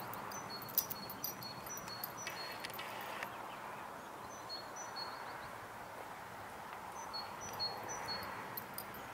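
A small bird singing short, high whistled notes in pairs, repeated several times in bouts, over a soft steady outdoor hiss. A few faint clicks sound near the start.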